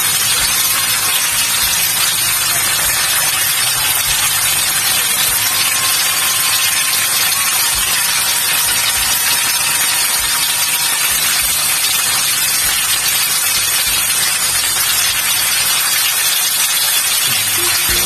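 Galunggong (round scad) frying in hot oil in a pan: a steady sizzling hiss.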